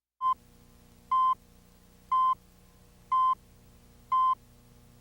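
An electronic beep at one steady pitch, about a fifth of a second long, repeating once a second, five times, over a faint steady electrical hum.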